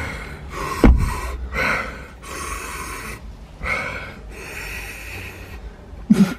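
A person breathing hard and sniffing in a series of about six noisy breaths, the reaction to the burn of an extremely hot chili chip with a running nose, with a short vocal grunt near the end.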